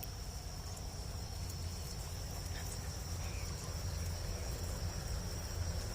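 Insects chirring in a steady, high-pitched drone, with a low rumble underneath.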